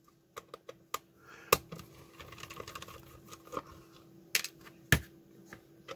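Small screwdriver working the screw and plastic back cover of a wireless doorbell receiver: scattered sharp clicks and plastic knocks, the loudest about a second and a half in and twice near the end, with some faint scraping between them. A faint steady hum runs underneath.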